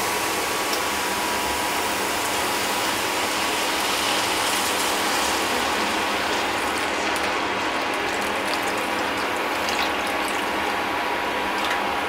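Cold milk poured into a hot pan of ghee-fried grated carrot, with a steady crackling sizzle from the pan. The highest part of the hiss dies down about halfway through.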